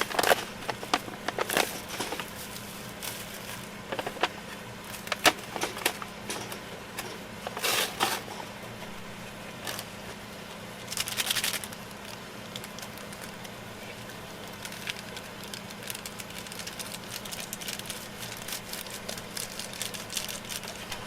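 Irregular crackles and sharp clicks, thicker in the first half, with two longer rustling bursts about eight and eleven seconds in, over a faint steady low hum.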